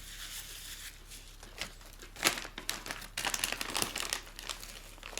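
Plastic food packaging being handled, quiet at first, then a run of sharp crackles and rustles from about two seconds in.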